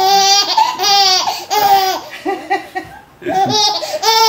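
A young baby laughing heartily in a run of short, high-pitched bursts. The laughter pauses for about a second near the middle, then starts again.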